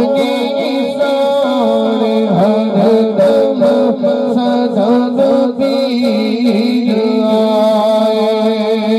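A man singing a naat, an Islamic devotional song, into a microphone over a sound system. His voice bends and wavers in ornamented runs over a steady held drone.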